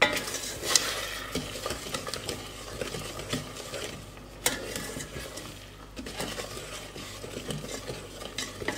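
Wooden spoon stirring and scraping through melting butter, demerara sugar and golden syrup in a stainless steel saucepan, as the butter melts and the sugar starts to dissolve. A sharper knock comes about four and a half seconds in.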